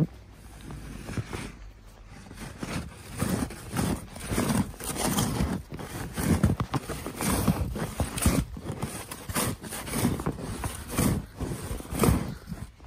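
Snow pusher shovel shoved through deep snow again and again: repeated crunching and scraping of the blade packing and pushing snow, in an uneven rhythm.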